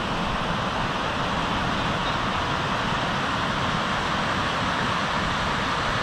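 Schächen mountain river rushing over stony rapids: a steady, even rush of water.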